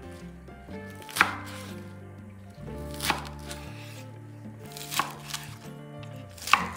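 Chef's knife chopping through a bunch of fresh spinach on a wooden cutting board: four strokes, about one every two seconds, each ending in a sharp knock of the blade on the board.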